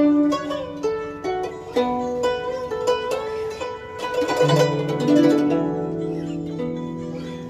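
Guzheng (Chinese zither) played solo in a slow melody of single plucked notes. Some notes are bent by pressing the string after the pluck, so their pitch slides.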